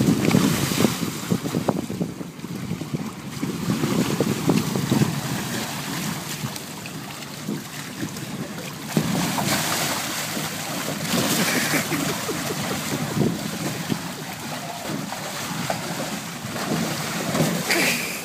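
Water sloshing in a shallow inflatable pool under clear plastic water-walking balls rolling on it, with crackling rustles and bumps of the ball plastic and wind noise on the microphone.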